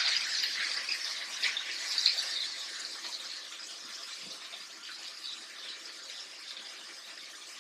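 Chicken thighs sizzling skin side down in hot oil in a skillet: a steady frying hiss with a few faint crackles near the start, slowly fading.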